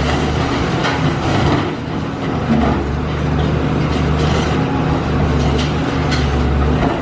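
Caterpillar high-reach demolition excavator's diesel engine running steadily under work, with scattered knocks and cracks of concrete being pulled apart.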